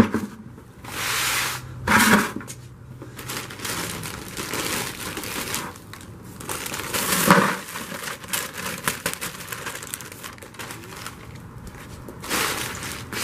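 Plastic bag of crushed dry ice crinkling and rustling as it is handled and emptied into a bucket, with louder crinkling bursts about one, two, seven and twelve seconds in.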